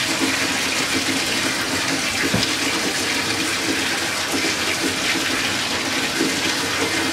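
Bathtub spout running steadily, water pouring into the tub.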